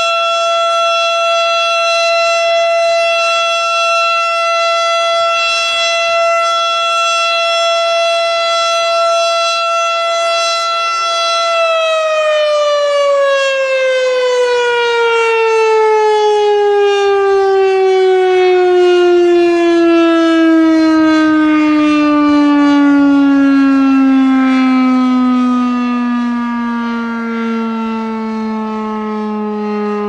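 STH-10 air raid siren sounding a loud, steady tone, then, about twelve seconds in, winding down with its pitch falling slowly and smoothly as the rotor coasts to a stop.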